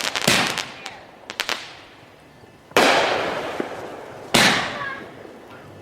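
Consumer fireworks going off: three loud bangs about a second and a half apart, each trailing off slowly, with a quick run of crackles after the first.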